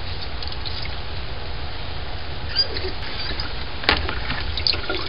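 Corn beer dribbling from a squeezed handful of mash into a plastic colander, over a steady low rumble, then a single sharp plastic knock about four seconds in as the colander is picked up off the cooler.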